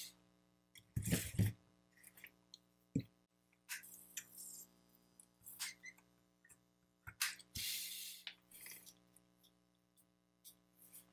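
Bench handling sounds from an opened DeWalt 20V Max battery pack being worked with a screwdriver and meter probes: scattered small clicks, taps and brief scrapes, the loudest a knock and rustle about a second in. A faint steady hum runs underneath.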